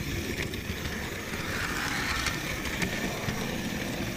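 Model train running along its track, heard from on board: a steady rumble of wheels and motor with a few sharp clicks as the wheels cross rail joints.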